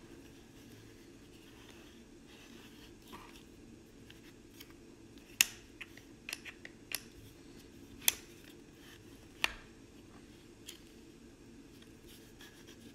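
Hard plastic clicks from a Milwaukee ROVER pocket flood light as its pivoting head and folding stand are turned and snapped into place in the hand. There is a quick run of sharp clicks about five to seven seconds in, then two louder single clicks a little over a second apart.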